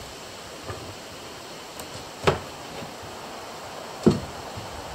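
Two sharp knocks about two seconds apart, each dying away quickly, over a steady faint hiss.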